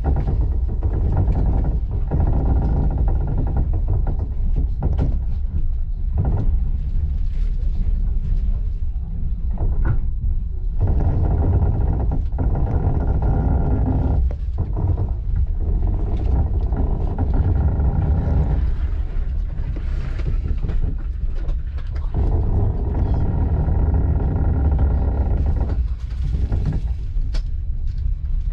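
Commuter train running, heard from inside the carriage: a steady low rumble of wheels on the rails, with now and then a short knock as the wheels pass over track joints and points.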